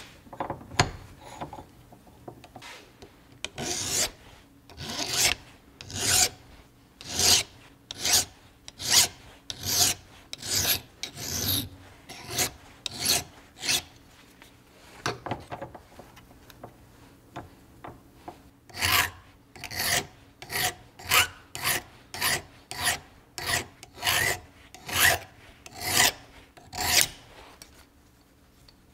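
Hand file rasping across a small metal part clamped in a bench vise, in repeated back-and-forth strokes about one a second. The strokes pause for a few seconds about halfway, then resume at a quicker pace.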